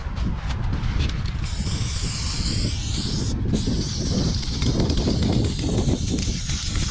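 Aerosol spray-paint can hissing steadily as black paint is sprayed onto the wall. The hiss starts about a second and a half in and breaks off briefly near the middle. A low rumble runs underneath.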